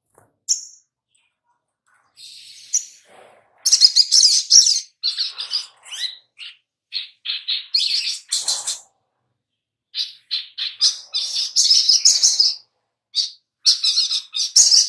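Male olive-backed sunbird singing: rapid, high-pitched twittering chirps and trills in bursts, separated by short pauses, starting a couple of seconds in.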